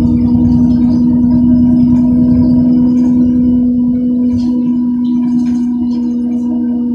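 Solaris Urbino 10 III city bus under way, heard from inside the passenger cabin: a loud steady whine at one unchanging pitch over a low drive rumble. The rumble eases about four and a half seconds in.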